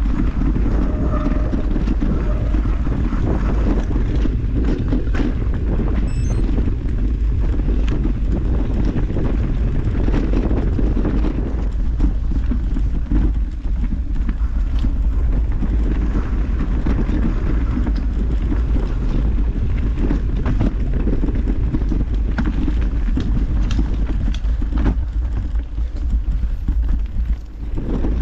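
Wind buffeting the microphone over the rolling and rattling of a mountain bike ridden along a trail, with frequent short knocks from the bike over rough ground.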